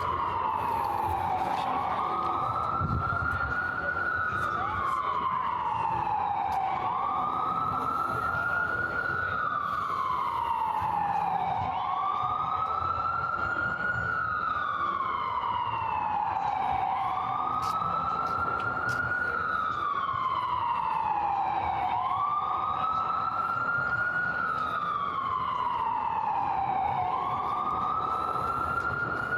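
Emergency vehicle siren wailing, its pitch rising and falling in slow, even sweeps about every five seconds, over steady street noise.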